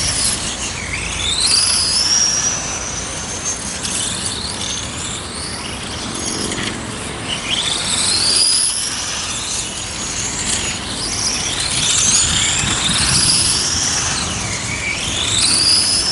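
Electric motors of 1:8 on-road RC race cars whining as the cars accelerate around the track. The whines climb in pitch over a second or two and come again and again as cars pass, over a steady hiss of tyres and drivetrains.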